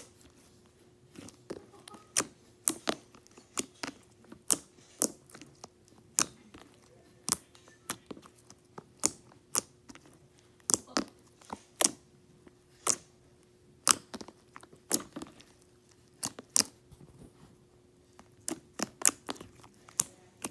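Slime being squeezed and poked, giving sharp pops and clicks at an uneven pace of about one or two a second.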